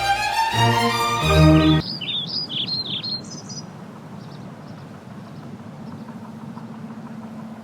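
Instrumental music stops about two seconds in, followed by small birds chirping in a quick run of high calls. After that, a faint steady outdoor background with a low hum and a few soft distant chirps.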